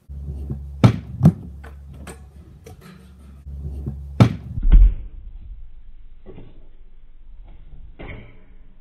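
Stunt scooter and rider knocking and thudding: sharp knocks about a second in, a heavy thud just before five seconds, and a softer thump near the end as the rider lands on his back on a foam mattress, all over a low steady hum.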